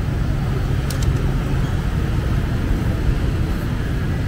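Steady rumble of passing street traffic, mostly motorbikes and cars, with a couple of short clicks about a second in.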